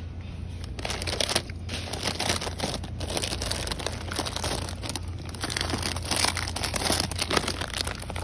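Plastic snack-bag wrappers crinkling as they are handled, in dense irregular crackles that start about a second in.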